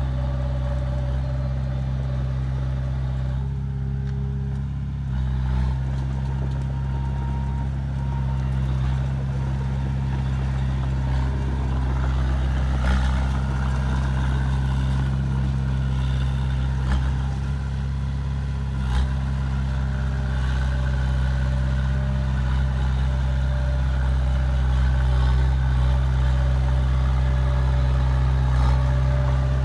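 Heavy construction machinery's diesel engine running steadily, with a few short knocks now and then.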